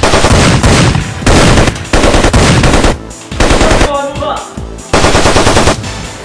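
Bursts of machine-gun fire: about six short, very loud volleys of rapid shots, each lasting under a second, with brief pauses between them.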